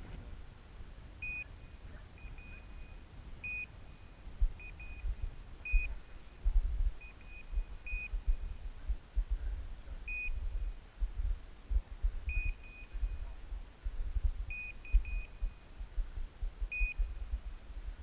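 Electronic beeper collar on a bird dog sounding short, high beeps about every two seconds, with fainter quick chirps between them. Wind rumbles on the microphone underneath.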